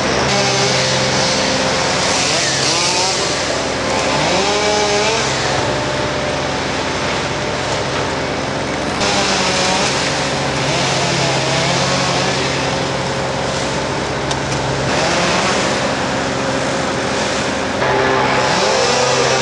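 Chainsaw running up in a tree: a steady engine drone with hiss that shifts in level several times. Short rising and falling pitched calls sound over it now and then.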